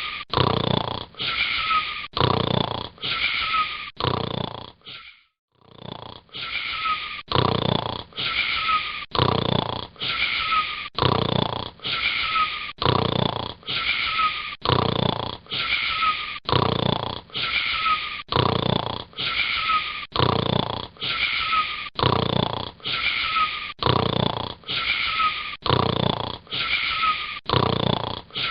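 A boy snoring, each breath wheezy with a faint falling whistle. The breaths repeat quickly and very evenly, about three every two seconds, with a short silence about five seconds in.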